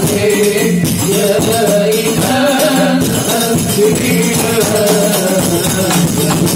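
Hadrah ensemble performing sholawat: rebana frame drums beating an interlocking rhythm under men singing, amplified through a PA mixer.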